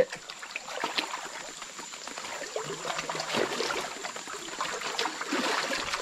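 Water in a shallow, muddy forest stream splashing and flowing, with irregular small splashes as someone wades through it.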